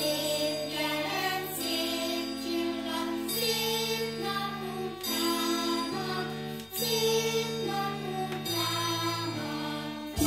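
A vinyl record playing music on a Sanyo TP 388 auto-return turntable: held chords that change about every one and a half to two seconds.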